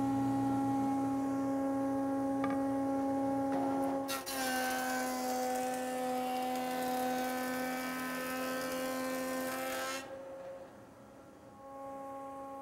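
Jointer/planer combination machine running in planer mode with a steady motor and cutter-head whine. About four seconds in, a board feeds through and the cutter head's rushing cutting noise covers the whine, which drops slightly in pitch under the load. About ten seconds in the board clears and the machine runs on more quietly.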